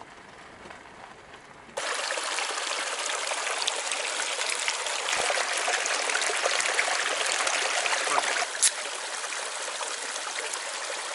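Shallow creek water rushing and trickling steadily through a gold sluice and over rocks, starting abruptly about two seconds in. Near the end there is a single sharp crack from a beer can being opened.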